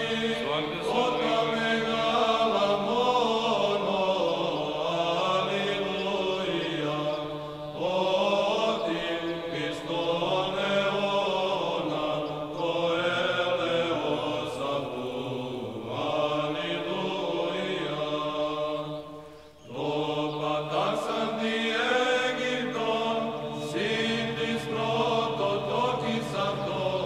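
Orthodox church chant sung by male voices, a melody moving over a held low drone, with brief pauses about 8 and 19 seconds in.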